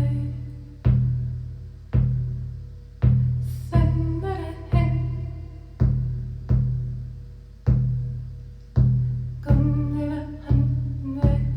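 Shamanic hand drum beaten slowly and steadily, about one deep booming stroke a second, each ringing out before the next. A voice tones wordlessly over the drum twice, briefly.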